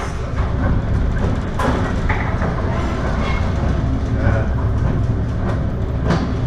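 Steady heavy rumble of a ship working through heavy seas, heard from inside, with scattered knocks and rattles.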